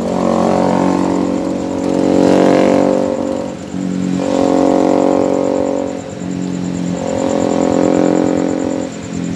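A nearby motor vehicle engine running and revving in repeated swells, dipping about every two and a half seconds.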